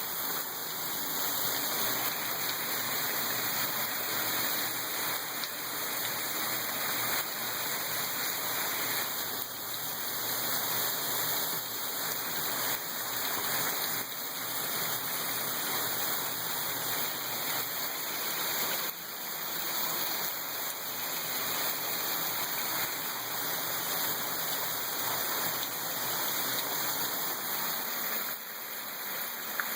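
Heavy rain falling steadily: a dense, even hiss that swells and eases slightly from moment to moment.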